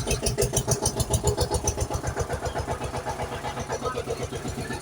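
Vehicle engine running with a rapid, even chugging, with a regular clicking on top during the first couple of seconds.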